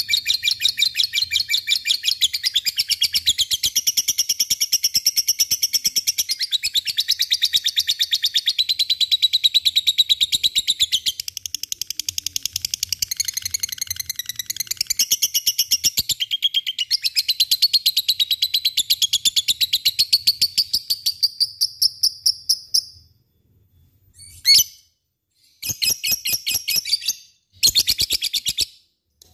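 Lutino peach-faced lovebird giving its long 'ngekek' song: a fast chattering trill of rapid high chirps, unbroken for over twenty seconds, then breaking off into a single call and a couple of short bursts near the end.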